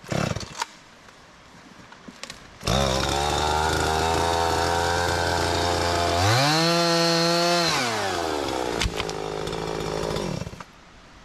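Two-stroke chainsaw starting up about three seconds in and idling. It revs up once for about a second and a half, drops back to idle, then shuts off near the end.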